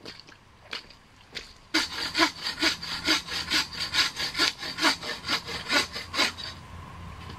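Hand saw cutting through wood in quick back-and-forth strokes, about four a second. It starts about two seconds in and stops shortly before the end.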